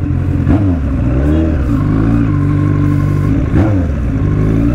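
Yamaha R1's inline-four engine running through its loud open-pipe exhaust while ridden. The note rises and falls with the throttle, with sharp pitch changes about half a second in and again about three and a half seconds in.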